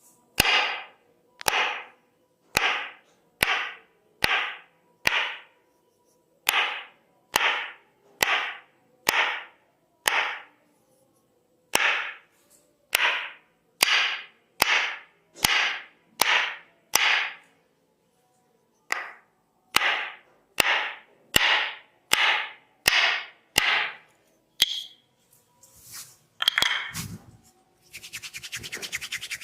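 Tok Sen massage: a wooden mallet striking a wooden stick, sharp knocks with a short ringing tail at about one a second, in runs broken by short pauses. Near the end the knocking gives way to a few irregular taps and a brief rustling.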